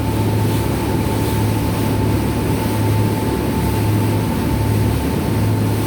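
Tour boat's engines running steadily under way: a low, even drone with a thin steady whine above it, over a constant rushing noise.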